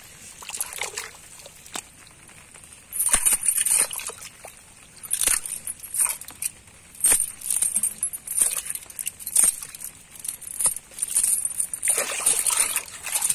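Hands sloshing and splashing in a small hole of muddy water, in irregular short bursts, with occasional sharp clinks from a metal chain worked in the water.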